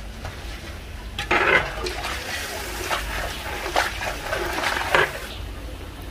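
Hot water being poured into a large steel cooking pot of mutton simmering in broth, splashing for about four seconds starting a second in, over a low steady rumble.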